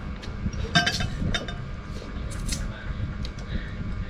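Dishes and utensils clinking during a meal: a few short sharp clicks about a second in and again around two and a half seconds in.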